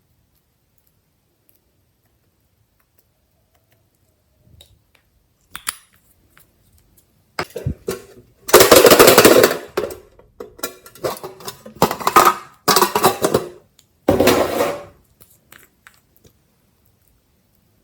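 Glossy slime being squished and pressed by hand, giving rapid crackling pops of trapped air. It starts with a few scattered clicks, then comes in three loud bursts in the second half.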